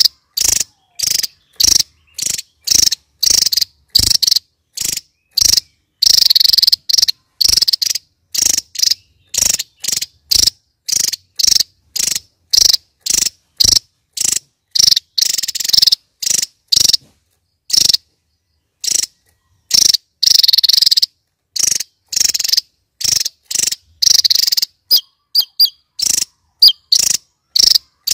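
Javan tesia singing: short, high, rapid bursts about two a second, with a few longer trills of about a second.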